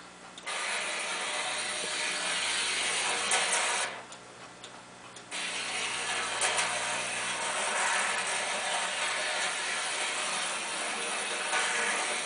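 Model train running on its track: a steady mechanical rattle of the electric motor's gearing and the wheels on the rails. It drops away for over a second about four seconds in, then resumes.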